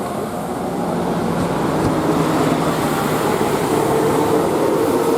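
Roadside traffic: a large vehicle's engine and road noise growing louder over the first two seconds, with a steady higher tone coming in about midway.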